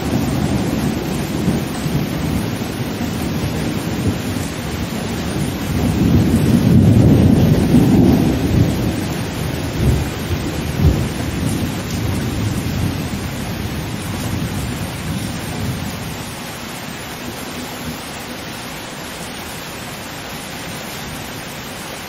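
Distant thunder rumbling over steady rain. The rumble swells to its loudest about a third of the way in, with two sharper claps just after, then dies away, leaving the even hiss of the rain.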